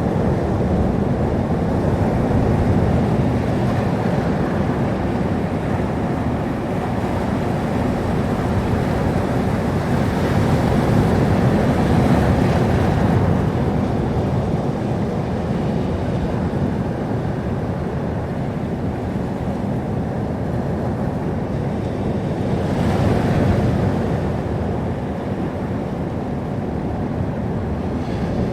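Sea surf: waves washing on a shore in a continuous rush, swelling louder about twelve seconds in and again about twenty-three seconds in.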